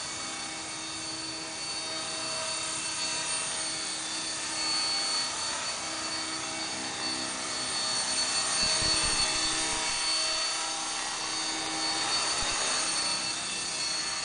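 Electric radio-controlled model helicopter (Esky Belt-CP) hovering: the steady high whine of its electric motor and gears with the whir of the rotor blades. It gets louder around the middle as the helicopter hovers close by.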